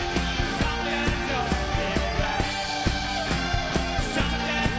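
Rock band playing live: drums keep a steady beat under sustained chords and singing.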